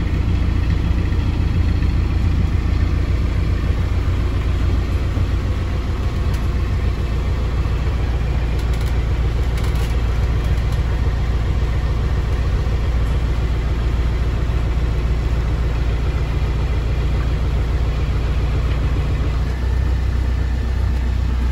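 Inboard diesel engine of a river hire cruiser running steadily at low speed as the boat manoeuvres, a deep, even hum heard from inside the wheelhouse. A couple of seconds before the end it dips briefly and then comes back fuller.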